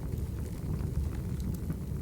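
Wood fire burning: a steady low rumble with scattered small crackles.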